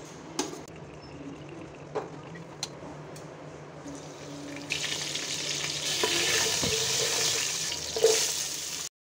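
Cumin seeds and curry leaves sizzling in hot oil in a pot: a steady hiss that starts about halfway through and grows louder. A few light clinks come before it, and a sharp hit near the end as chopped onion is tipped into the oil.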